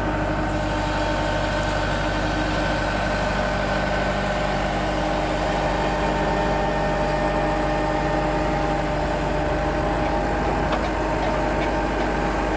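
An engine idling steadily, an even, unchanging drone.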